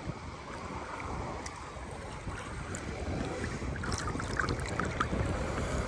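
Small sea waves lapping and splashing around a person wading waist-deep, with wind rumbling on the phone's microphone. A few small splashes come near the end.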